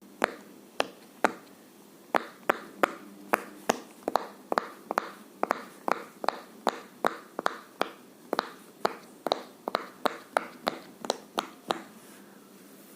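Silicone Pop It fidget toy, its bubbles pressed in one after another, each giving a sharp pop at about two to three pops a second, stopping near the end.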